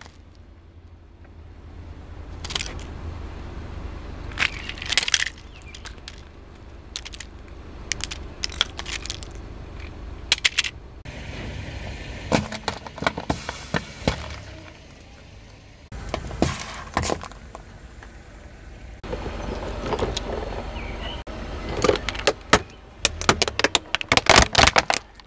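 A car tyre slowly rolling over and crushing objects one after another: bursts of sharp cracks and crunches as plastic toys snap and aluminium drink cans are flattened, over a low engine hum.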